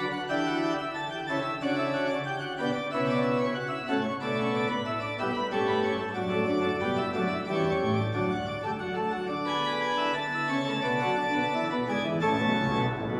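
Church pipe organ being played: a continuous passage of sustained, overlapping chords over low bass notes, the notes changing steadily.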